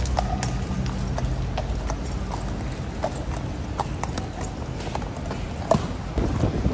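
Horse hooves clip-clopping on hard pavement, irregular sharp strikes over a low steady rumble.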